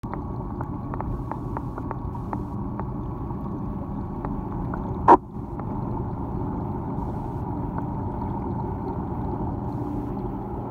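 Reef aquarium's pumps and water circulation heard underwater: a steady, muffled hum and rush, with faint ticks over the first few seconds. One sharp knock about five seconds in.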